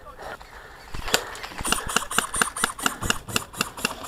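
Airsoft guns firing: a single sharp crack about a second in, then rapid, evenly spaced clicks of shots, about six or seven a second, from about a second and a half in.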